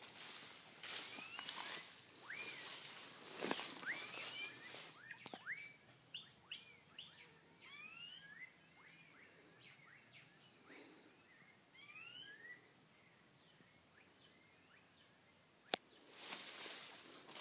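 Footsteps through grass for the first few seconds, with birds giving many short chirps, some rising and some falling in pitch, through most of the first two-thirds. A single sharp click about three-quarters of the way through, and footsteps start again near the end.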